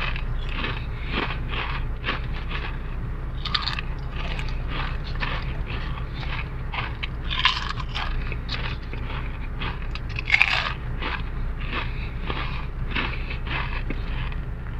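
Mister Potato sweet potato crisps being crunched and chewed in the mouth: a steady run of crackly crunches, with two louder bites about seven and ten seconds in.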